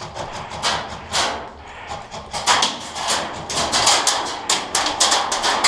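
A rapid, irregular series of sharp clacks and knocks over a rushing hiss, getting denser and louder about two and a half seconds in, at roughly four a second.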